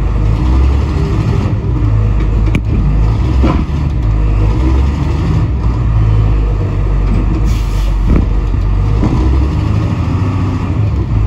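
Diesel engine of a 1988 International school bus revving under load in gear as it tries to climb out of a muddy tire rut, the drive tires spinning without moving the bus.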